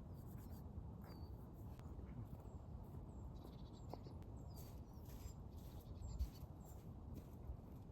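A small bird calling in a forest, giving short, high, falling chirps about once a second, over a faint low rumble and a few soft clicks.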